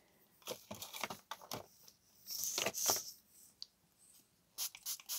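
Faint paper and craft materials being handled and shifted: short rustles, scrapes and small clicks, with the longest rustle about halfway through.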